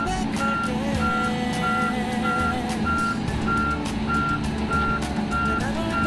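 A heavy-equipment backup alarm beeping steadily at one pitch, about one and a half beeps a second, over a diesel engine running.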